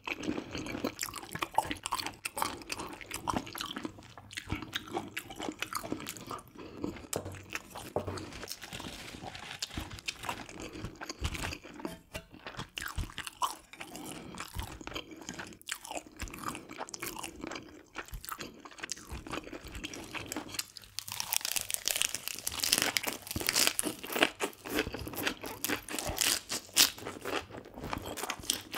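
Close-miked chewing of spicy stir-fried webfoot octopus and pork belly, with wet mouth sounds and many small crunches. About two-thirds of the way through the crunching grows louder and crisper as a lettuce wrap is bitten and chewed.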